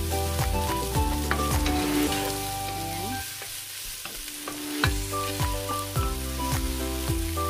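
Onions, tomatoes and garlic sautéing in a nonstick pot, sizzling, with a wooden spoon stirring and scraping against the pan. Background music with steady notes and a regular low beat plays over it, dropping out for a moment around the middle.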